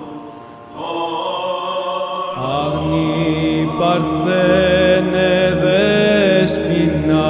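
Greek Orthodox Byzantine chant by male voices: a melodic line of long held, wavering notes over a low steady drone (ison) that comes in about two seconds in, the chant growing louder from there.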